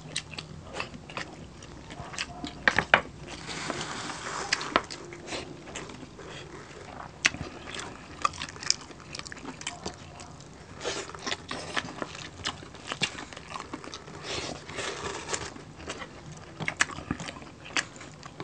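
Close-up eating sounds from crispy roasted pork belly (lechon): the crackling skin crunches and the meat is chewed. Sharp crackles come every second or so, with denser spells of crunching a few seconds in, in the middle and near the end.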